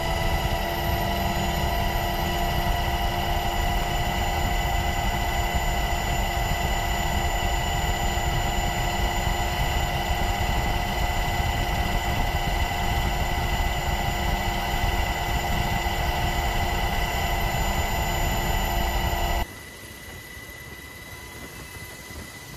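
Aircraft engine noise heard from inside the cabin: a steady, loud drone with several steady whining tones over it. About 19 and a half seconds in it cuts abruptly to a quieter, plainer drone. The underwater explosion seen in the distance makes no audible bang.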